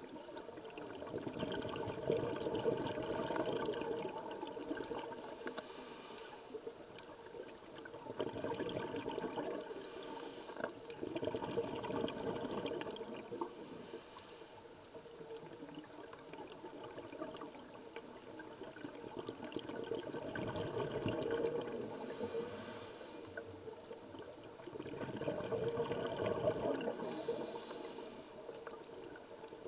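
Scuba diver's regulator breathing underwater, about five slow breaths: each long swell of exhaled bubbles is followed by a short, high hiss of inhalation through the regulator.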